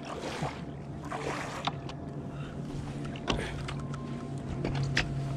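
Fishing boat's steady low hum, setting in about half a second in, with a few sharp knocks and clicks from gear on board.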